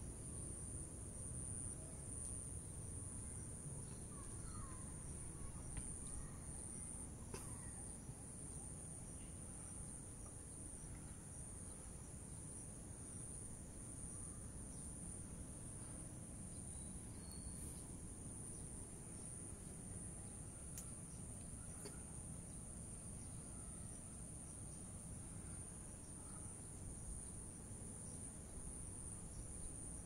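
Steady high-pitched chorus of insects, with a low rumble underneath.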